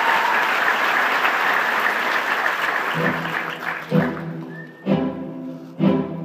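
Audience applause dying away. About halfway through, the orchestra comes in with low, accented string chords struck about once a second.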